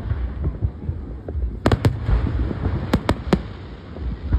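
Aerial fireworks going off: sharp bangs in two clusters, about a second and a half in and again around three seconds, over a continuous low rumble of launches and distant bursts.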